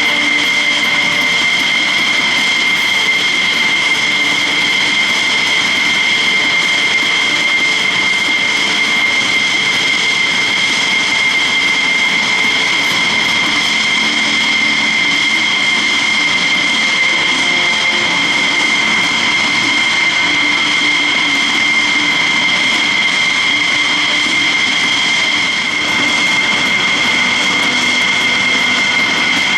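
F-16 Fighting Falcon jet engines running at ground idle after start-up: a steady loud roar with a constant high-pitched whine in two tones.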